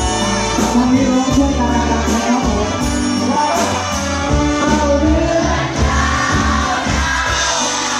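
A singer performing a Thai song over band music with a steady bass line and a regular cymbal beat.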